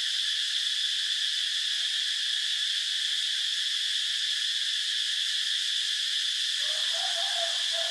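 Steady, unbroken chorus of insects, a high even drone. A faint, soft tonal call comes in about a second and a half before the end.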